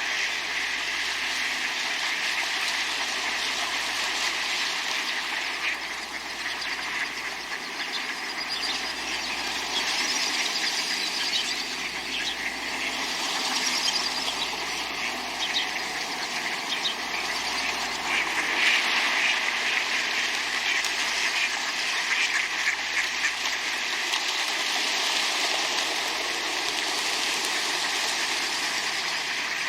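A flock of ducks splashing and quacking in water, with continuous dense splashing and scattered quacks throughout.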